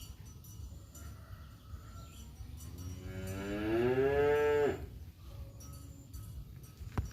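A tomcat's long, drawn-out yowl in a standoff with a rival male: it starts about two and a half seconds in, rises slowly in pitch over about two seconds, and cuts off sharply.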